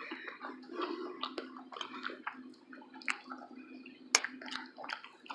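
Chewing and wet mouth sounds of someone eating breakfast food (pancakes, sausages, hash browns), with irregular smacks and short clicks and one sharper click a little after four seconds, over a steady low hum.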